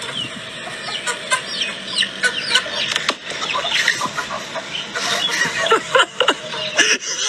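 A flock of chickens clucking, many short calls overlapping one another.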